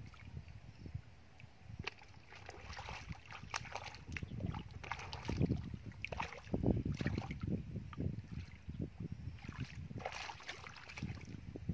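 Irregular splashing and sloshing of hands and bare feet in shallow muddy water as the mud is groped through for fish, loudest about halfway through.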